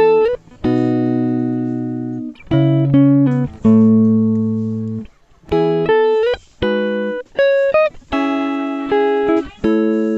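Background music: guitar chords struck one after another, each ringing out and fading before the next.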